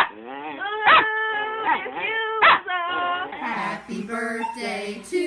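Small long-haired dog howling: three sharp yelps, about a second apart, each sliding into a drawn-out, wavering howl. Near the end it cuts to a different recording with several overlapping voices.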